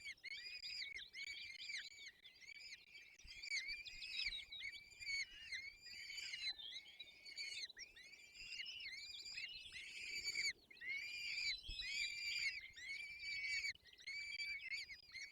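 Peregrine falcon chicks begging for food at the nest: a fast, continuous series of high, arched cheeping calls, about two or three a second.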